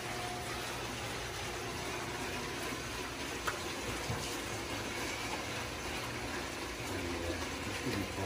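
Steady rushing of water, with a single light click about three and a half seconds in.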